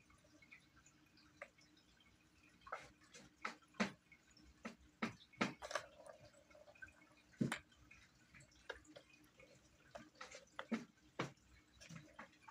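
Plastic balls clicking and knocking in the plastic tracks of a Tower of Tracks cat toy as a kitten bats at them: light, irregular taps, with the loudest clacks about 4 s in, around 5 to 6 s, and again near 7.5 s and 10 to 11 s.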